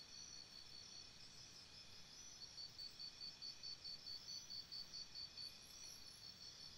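Faint, steady high-pitched chirring of forest insects. About a third of the way in, one caller takes up an even pulsing of about three to four beats a second for around three seconds, then fades back into the chorus.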